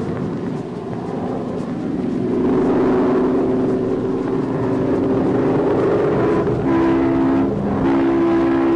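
A train rumbling, its horn sounding a sustained chord from about two seconds in, broken briefly twice near the end.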